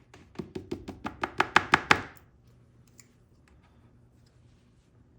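A quick run of about a dozen sharp taps, growing louder and stopping about two seconds in, from work on the lock cylinder of a 1959 Mercury ignition as it is taken apart.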